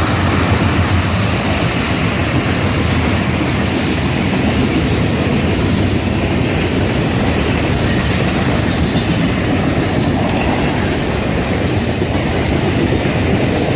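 Freight train's boxcars and lumber cars rolling past close by, a loud steady rumble of wheels on the rails with some clickety-clack.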